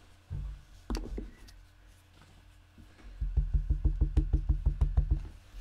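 A blending brush being dabbed rapidly into an ink pad to load it with ink: fast, even tapping, about ten taps a second for about two seconds, starting a little past halfway. Two single knocks come about a second before, as the pad is handled.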